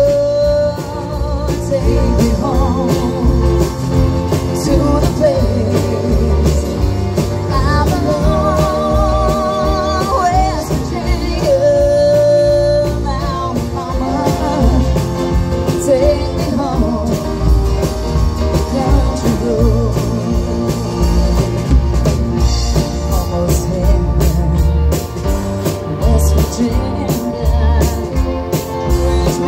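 Live country-rock band playing through a PA: a steady drum beat under electric and acoustic guitars and keyboard, with a melody line that bends and wavers in pitch partway through.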